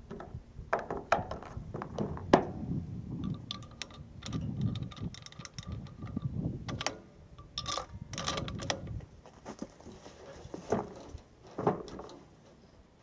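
A bolt-action .300 Winchester Magnum rifle being handled between shots: a series of sharp mechanical clicks and clacks over low rumbling handling noise, with the clearest clicks in the first two and a half seconds and again around eight, eleven and twelve seconds.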